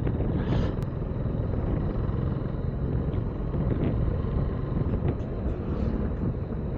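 Motorcycle engine running steadily at a slow cruise, mixed with wind rush on the rider's microphone.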